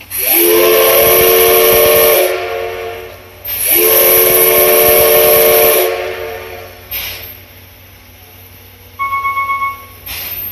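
Steam whistle of steam locomotive C11 325 giving two long blasts of about two seconds each, each sliding up in pitch as it opens, over a loud hiss of steam. A brief hiss of steam follows, and near the end comes a short, rapidly pulsing high tone.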